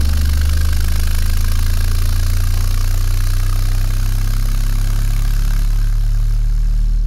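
A Sundown Audio NSv6 24-inch subwoofer driven hard with a steady, loud low bass tone and a hiss over it. Little mechanical noise comes from the driver.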